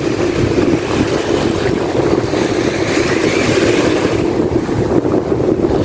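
Strong wind buffeting the microphone, a steady loud rumble over the wash of surf on a choppy sea.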